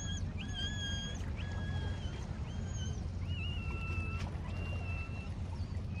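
Steady low rumble of water and wind along a rocky shoreline, with a bird giving a string of thin, high, level whistled notes, each about half a second long, that stop about five seconds in.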